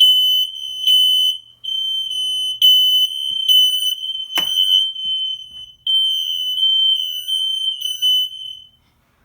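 Smoke alarm station buzzer set to high volume, sounding after its panic button has been pressed: a loud, shrill, steady tone that pulses in level. There is one sharp click about four and a half seconds in, and the alarm cuts off near the end.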